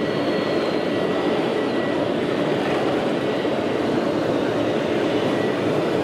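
Steady, unbroken din of a large exhibition hall where scale RC construction machines are running, with a faint high whine in the first couple of seconds.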